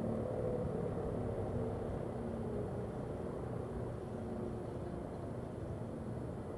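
Faint steady wail of outdoor warning sirens dying away over the first few seconds, under a constant low rumble.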